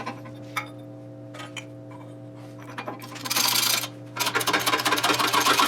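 A power tool runs with a dense, fast rattling buzz, in a short burst about three seconds in and then steadily from about four seconds. Before it there are a few light metal clicks over a steady electrical hum.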